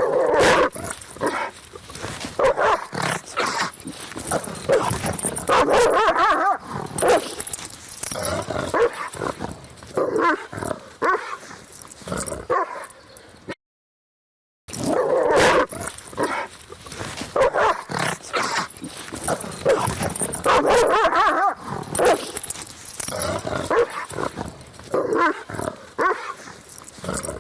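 Several dogs fighting and barking at each other in loud, irregular outbursts. The sound breaks off for about a second midway, then the same fight sequence plays again.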